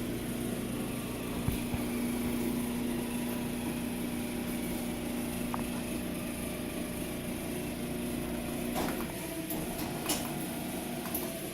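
A small motor running steadily with an even hum, its tone changing about nine seconds in, with a few light clicks.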